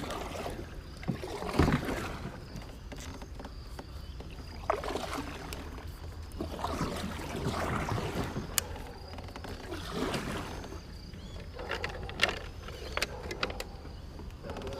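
Kayak paddle strokes swishing and splashing in the water, one every couple of seconds, with a few sharp knocks among them.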